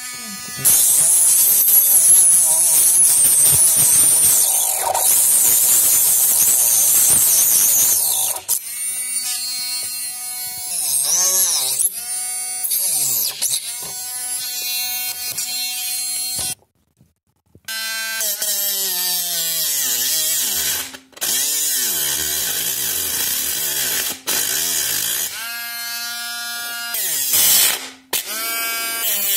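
Small cordless rotary tool with a thin cutting disc running and cutting into soft wood. Its high motor whine dips and climbs in pitch as the disc bites and frees, over a gritty cutting hiss. The sound drops out briefly about 17 seconds in, then the tool runs again.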